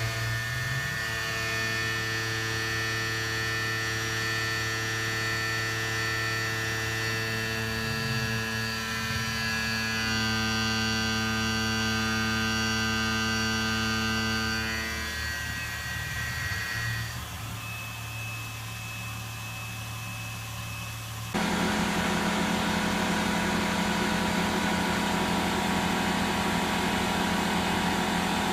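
Tormach PCNC 770 CNC mill running while milling a 6061 aluminum block, a steady whine made of many fixed tones. After about 15 seconds it thins out and drops in level, then about 21 seconds in it abruptly becomes louder and denser and stays steady.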